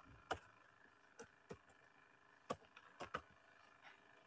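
Faint keystrokes on a computer keyboard: about eight short, irregular taps against near silence as a line of CSS is typed.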